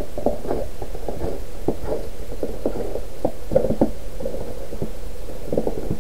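Footsteps crunching in snow, an irregular run of short crunches, over a steady low rumble on the microphone.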